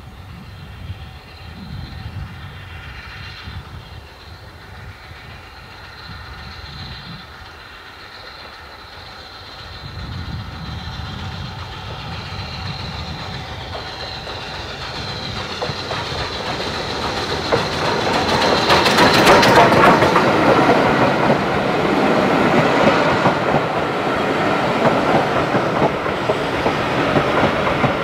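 BR Standard 4MT 2-6-4 tank steam locomotive No. 80151 running toward and past with its passenger train, growing steadily louder and loudest as the engine goes by about two-thirds of the way in. Its coaches then roll past, wheels clacking over the rail joints.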